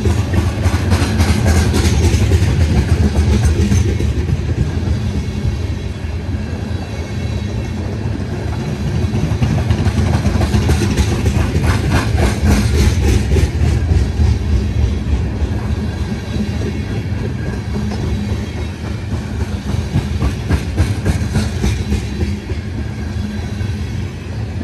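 Freight train of crude-oil tank cars rolling past: a steady low rumble of the wheels and cars, with spells of rapid metallic clicking and clatter a second or so in and again about ten to fourteen seconds in.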